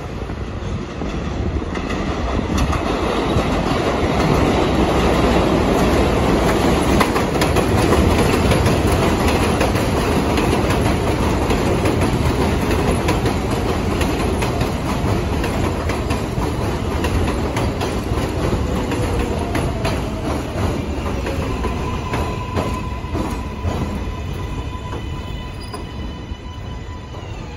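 R188 subway train pulling into an elevated station: rumble and wheel clatter build as it runs in along the platform, then ease off as it brakes. Over the last several seconds a falling whine and a steady high squeal come in as it slows.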